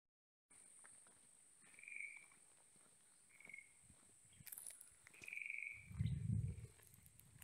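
Marsh ambience: a steady high-pitched drone with three short animal calls spaced about a second and a half apart, then low rumbling thumps near the end.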